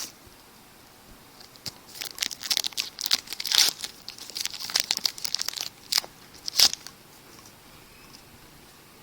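A baseball card pack's wrapper being torn open and crinkled: a run of crackling starts about two seconds in and ends with a last sharp crinkle about two-thirds of the way through.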